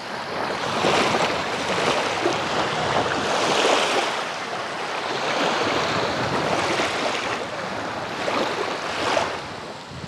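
Small sea waves lapping and washing over a sandy, weed-strewn shore in shallow water, each wash swelling and easing every two to three seconds.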